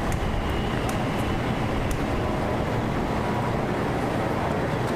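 Wind buffeting an outdoor microphone: a steady, uneven low rumble with a few faint clicks.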